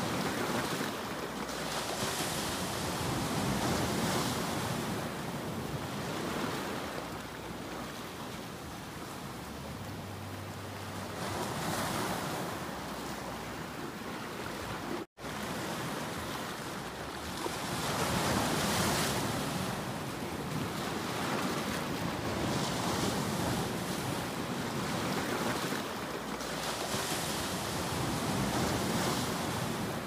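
Sea waves breaking and splashing over shoreline rocks, the surf swelling and ebbing every few seconds. The sound drops out for an instant about halfway.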